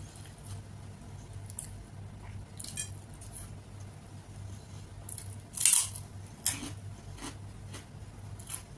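Eating sounds: fingers mixing and squishing rice and rajma curry on a plate, with chewing and a few sharp smacking clicks, the loudest just before six seconds in. A steady low hum runs underneath.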